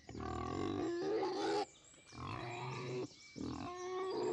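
An animal calling: three pitched, wavering calls of about a second each, separated by short gaps.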